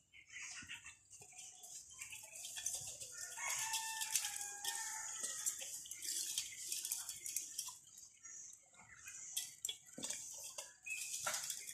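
A rooster crowing, a drawn-out pitched call from about three to six seconds in, over a steady high hiss, with scattered light clicks as the ducks peck and dabble at their feed bowls.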